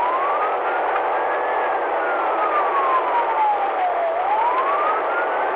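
Police car siren on a slow wail, rising, then falling steadily for about two and a half seconds, then rising again near the end, over the steady hum of the patrol car driving at speed.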